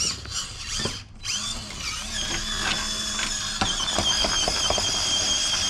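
Small electric motor and gearbox of an FMS FCX18 Chevy K10 RC crawler whining in first gear as it crawls up rocks. The whine wavers in pitch over the first two seconds with the throttle, then holds steady, with a few sharp clicks past the middle.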